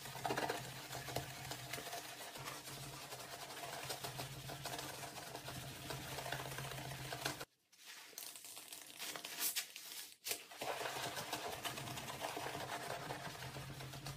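Wet scrubbing of a ceramic sink with a soapy sponge in a rubber-gloved hand, with the sponge squishing foam, over a steady low hum. The sound cuts out briefly twice, about halfway through and again a few seconds later.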